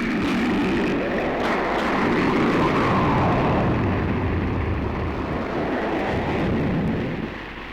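A dense, rushing noise effect like a passing jet, with slowly sweeping tones. It starts abruptly and falls away near the end, part of an electronic and guitar music track.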